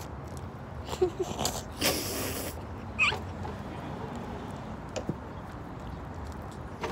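Stifled laughter and breathy puffs through mouths stuffed with marshmallows, with a short high squeak about three seconds in.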